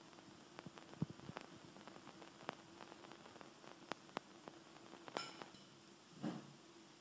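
Light clicks and taps of a metal teaspoon against a glass jar and a ceramic mug as it is spooned from one to the other, with one clearer ringing clink about five seconds in. A faint steady hum runs underneath.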